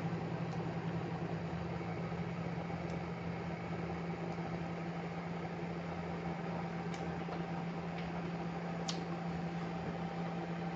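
Steady low electrical hum over a faint even hiss of room tone, with a few faint clicks, the sharpest about nine seconds in. The e-cigarette draw and exhale are not plainly heard over it.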